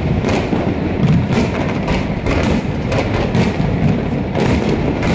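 Aerial fireworks shells bursting in quick succession, several sharp bangs a second over a continuous rumble.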